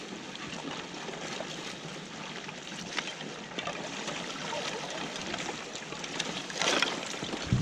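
Icy water sloshing and splashing as several people in ice rescue suits kick and swim through an open hole in the ice, with a louder splash near the end.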